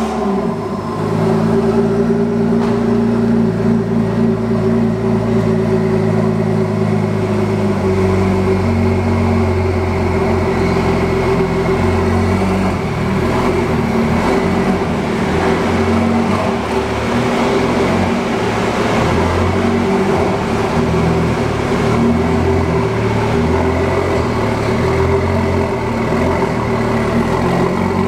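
Ford GT's twin-turbo 3.5-litre V6 idling steadily.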